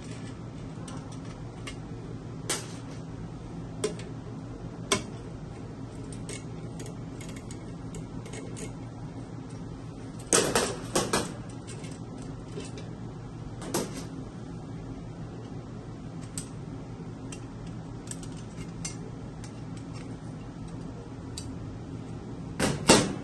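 Sharp metal clicks and clinks from the waffle maker's small screws, nuts and metal cover plate being handled, with a short cluster of clatters about halfway through as the plate comes off. The loudest clatter, near the end, comes as the coiled heating element is pulled out of its housing. A steady low hum runs underneath.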